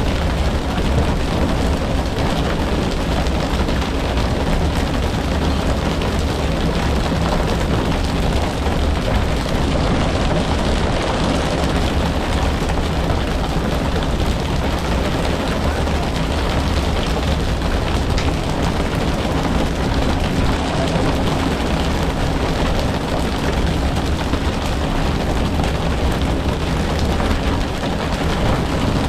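Fishing boat's engine running with a steady low hum under a constant loud rush of water and wind noise.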